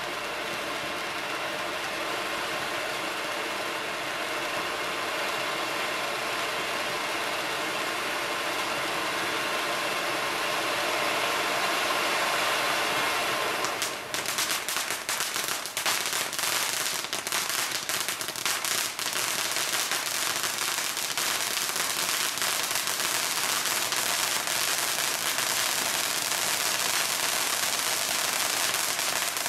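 Diamond Fireworks Mammoth Volcano fountain firework burning: a steady hiss of sparks that, about halfway through, turns into dense, rapid crackling as its crackling stars take over.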